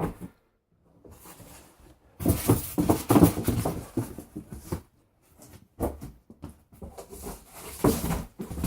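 Packaging being handled during an unboxing: rustling and crackling with knocks, loudest from about two to five seconds in, then quieter scattered rustles and clicks.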